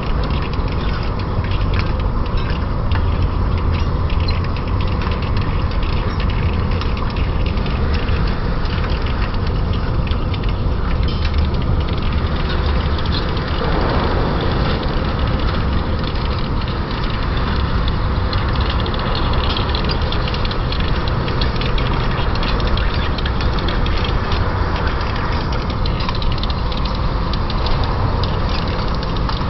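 Lathe running steadily while turning the journal of a 40Kh alloy-steel shaft: a constant low machine hum, with a brighter hiss added from about twelve seconds in until near the end.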